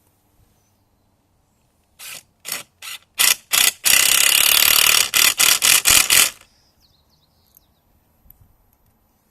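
Power drill driving a stainless steel screw into pre-drilled cedar: a string of short trigger bursts, a steady run of about a second a little before the middle, then a few more short bursts before it stops.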